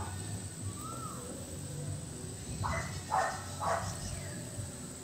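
An animal gives three short harsh calls about half a second apart, a little past the middle. A faint rising-and-falling bird whistle comes about a second in.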